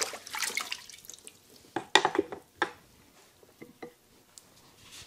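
Wet waterstone in its plastic holder being turned over to the 8,000-grit side and knocked down on the bench, with water dripping and splashing. There are small clatters at first, then two sharp knocks about two seconds in and a few faint ticks after.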